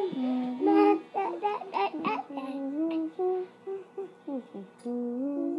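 A voice singing a wordless tune, holding each note briefly and stepping up and down in pitch.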